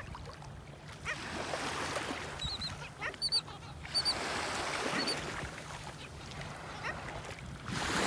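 A flock of black skimmers calling with short, nasal, honk-like yaps, with a few brief high chirps mixed in, over the wash of surf.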